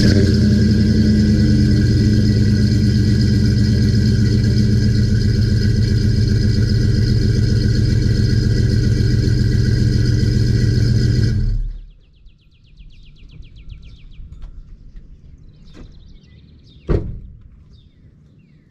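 Chevrolet pickup's engine running at a steady idle at the tailpipe shortly after a cold start, loud and even, then stopping abruptly about two-thirds of the way through. Afterwards birds chirp faintly and a single sharp knock sounds near the end.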